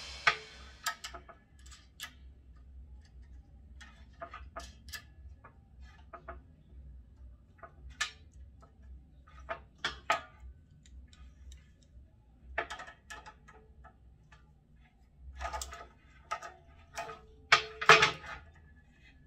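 Scattered small clicks and knocks of metal and plastic parts as a tree-pruner head with saw blade is fitted onto its extension pole by hand, with a louder clatter near the end as pliers are put to the fitting.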